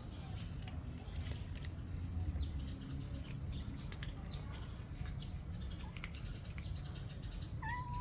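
Cats eating, with faint crunching clicks over a steady low rumble, and one short pitched call near the end.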